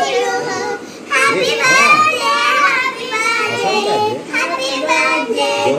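Young children's voices talking and calling out in a sing-song way, with a brief lull about a second in.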